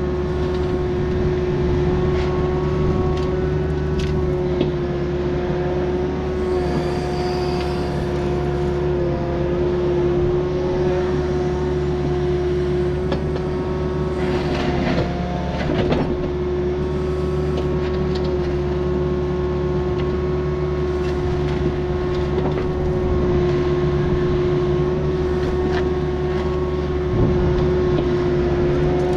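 Takeuchi diesel earthmoving machine running steadily under work, its engine drone carrying a constant pitched tone, with a few brief knocks and clanks.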